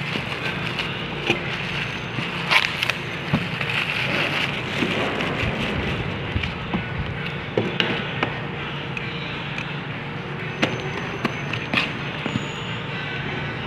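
Plastic bag wrapping crinkling as a cardboard parcel is pulled out and handled on a tabletop, with scattered taps and knocks of the box being moved and set down, over a steady low hum.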